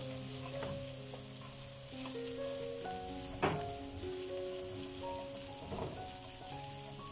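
Diced carrots and onion sizzling in a hot nonstick frying pan as they are stirred, with a sharp knock of the utensil against the pan about three and a half seconds in. Background music plays underneath.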